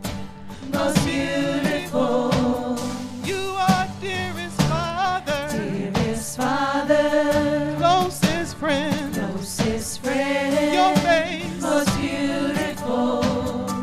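Live gospel praise singing: a small group of women's voices in long, wavering held notes over steady instrumental backing.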